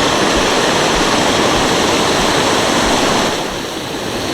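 Waterfall rushing, a steady loud wash of falling water that eases slightly about three seconds in.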